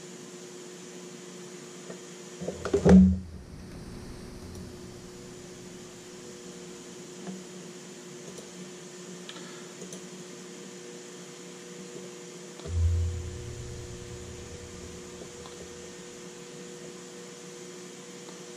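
Steady electrical hum, with a loud knock about three seconds in and a dull thump around thirteen seconds in, and a few faint ticks, as wires are handled on the oven's metal chassis on a desk.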